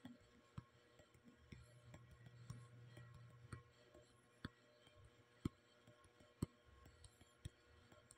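Near silence: room tone with faint, sharp ticks, evenly spaced about once a second in the second half, and a low hum for a couple of seconds early in the stretch.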